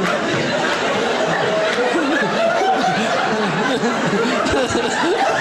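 A stand-up comedy audience laughing at a joke: many people laughing together in a steady, unbroken stretch.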